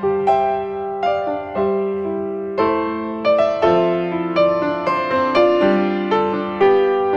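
Background piano music: notes and chords struck about once or twice a second, each left to ring and fade.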